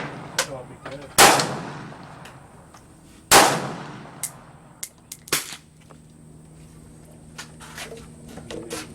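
Two rifle shots about two seconds apart, each with a long fading echo, followed by several lighter clicks and pops.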